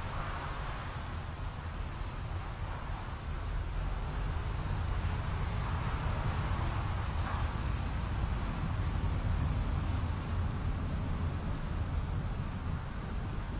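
Insects trilling steadily in two high, unbroken tones, over a low, continuous rumble.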